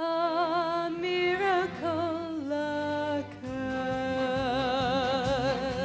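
A woman singing solo, drawing the words "a miracle" out over long, held notes with wide vibrato.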